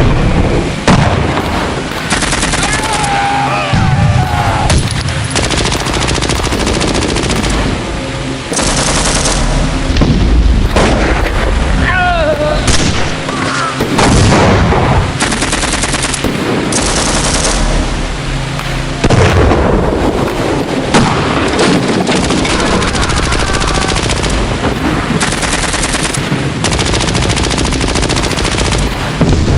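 War-battle sound effect: continuous gunfire with rattling machine-gun bursts and the occasional heavy boom.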